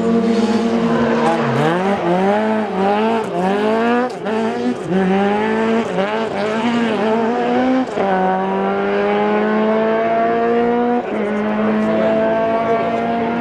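Ford Escort rally car engine revving hard, its pitch swinging up and down quickly for several seconds as the throttle is blipped and lifted, then climbing steadily through the gears with a sharp gearshift drop near the end.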